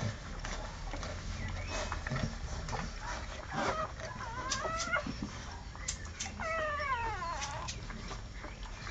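Newborn American Staffordshire Terrier puppies squealing as they nurse: short rising squeals about four seconds in and a longer falling squeal around seven seconds, among soft clicks.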